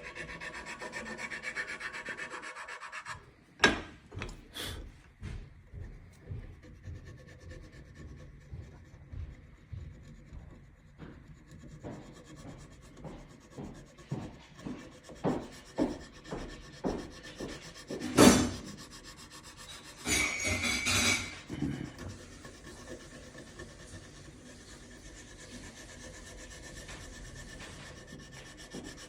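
Hand tools working the wooden stock of a double rifle while its drop points are shaped: a steady rasp at first, then a long run of short scraping and filing strokes on the wood with one loud knock near the middle.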